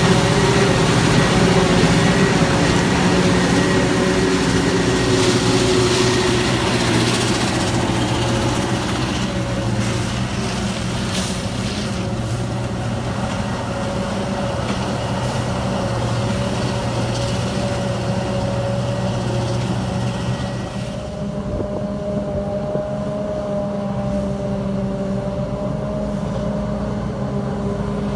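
Heavy farm machinery engines running steadily under load at a corn silage harvest, a loud continuous drone with a steady hum. Part way through, the brighter hiss drops away and the lower engine hum carries on.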